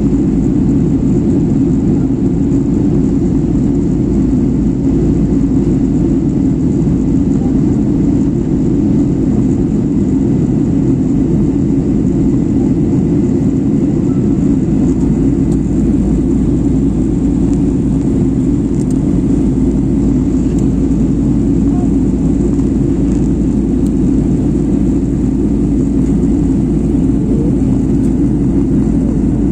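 Airliner cabin noise in flight: a steady, loud rumble of the engines and rushing air, heavy in the low end and unchanging, heard from inside the cabin at a window seat.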